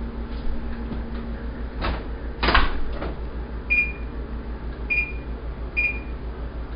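An oven door shut with a knock about two and a half seconds in, followed by three short, high electronic beeps from the electric range's control panel as its buttons are pressed.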